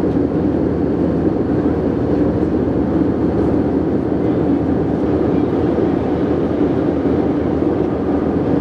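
Steady low drone of a jet airliner cabin in flight: engine and rushing-air noise heard from a window seat over the wing.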